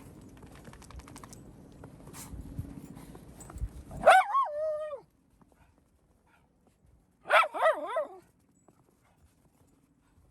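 Miniature schnauzer giving two drawn-out barks with a bending pitch, about three seconds apart, after a few seconds of scuffling and footstep noise.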